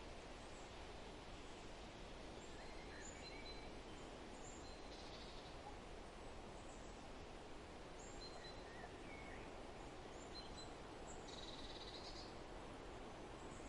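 Faint, steady forest wind, with scattered short, high bird chirps and calls. There are two brief buzzy calls, one about five seconds in and one near the end.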